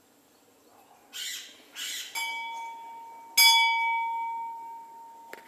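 Hanging temple bell struck twice by hand about a second apart, the second strike louder; each rings out with a clear metallic tone that slowly dies away. Two short rustling noises come just before the first strike.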